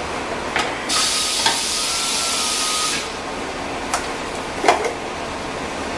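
A steady hiss for about two seconds, then a few light clicks and a sharper knock as a plastic engine oil filler cap is twisted off and handled.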